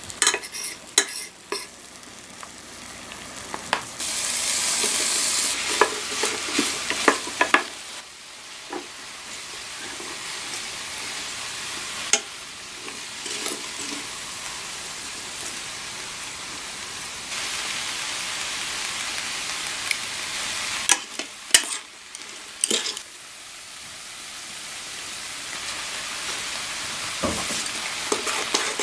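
Chicken breast and diced vegetables sizzling in a stainless steel pan as they are stir-fried, with the spatula clicking and scraping against the pan. The sizzle swells and drops in stretches of a few seconds.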